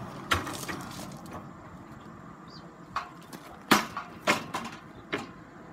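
Scaffold deck board knocking against the steel scaffold frame as it is lifted and fitted on top: a handful of separate sharp knocks, the loudest a little past halfway.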